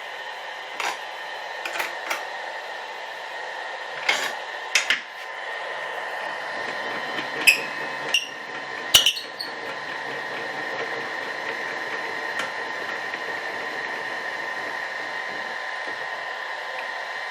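Table saw running steadily without cutting, a constant hum with a faint whine. Several sharp clicks and knocks occur in the first part, some with a short metallic ring.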